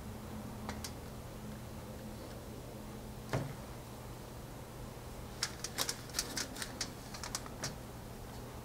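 Small, light clicks and taps from a painted tile being handled over metal pins on a wooden disc: one sharper click about a third of the way in, then a quick irregular run of about a dozen small clicks near the end, over a faint steady low hum.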